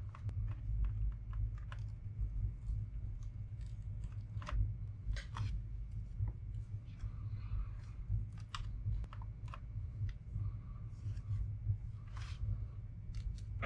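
Scattered small clicks and taps of plastic and metal laptop parts being handled with gloved hands and pliers during a teardown, with a brief rustle about seven seconds in, over a steady low hum.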